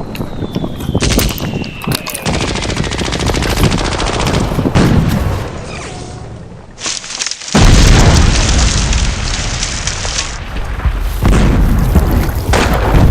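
War sound effects: rapid machine-gun fire with a whistle falling in pitch at the start, then a sudden loud explosion about halfway through, its deep rumble running on.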